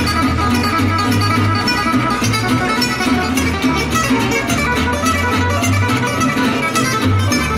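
Background music on guitar, a steady stream of quickly plucked notes.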